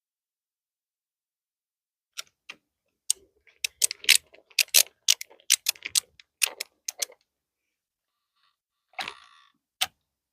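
A quick, irregular run of sharp clicks for about five seconds, then a short scrape and a single click near the end: a hand screwdriver working small screws into the strike plate of an RV door lock.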